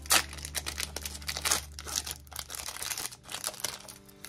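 Foil wrapper of a genuine Pokémon booster pack being torn open and crinkled: irregular crackling and tearing, loudest just after the start and again about a second and a half in.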